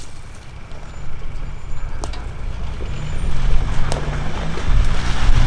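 Ford Ranger Raptor pickup driving slowly in, its engine growing louder as it comes closer, with a few sharp clicks along the way.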